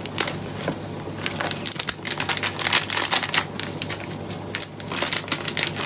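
Quick, irregular crackles and clicks of powdered seasonings being handled and sprinkled over raw chicken pieces in a bowl.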